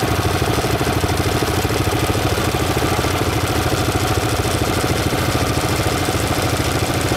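ATV engine idling steadily, heard close up from its front rack, with an even, rapid pulse.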